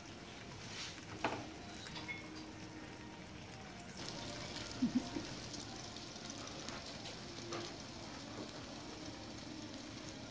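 Eggs and ham frying on a small plate over a tabletop burner, a steady sizzle that grows stronger about four seconds in as they are stirred with chopsticks. A few sharp clinks of chopsticks against the dishes, the loudest a quick pair about five seconds in.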